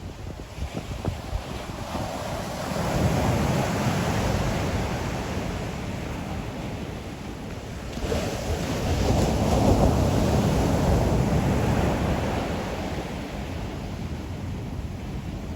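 Ocean waves breaking and washing up on the shore, in two surges about six seconds apart that each build and then fade.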